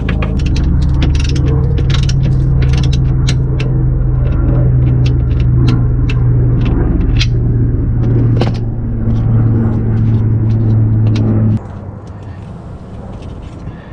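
Ratchet wrench clicking in short irregular runs as the jacking rail's bolts are tightened, over a loud steady low hum that cuts off suddenly near the end.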